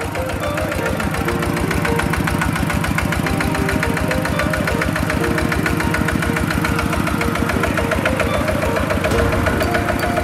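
Kubota RT120 DI single-cylinder diesel engine of a two-wheel power tiller running, a steady rapid chugging of firing strokes that grows a little louder over the first two seconds.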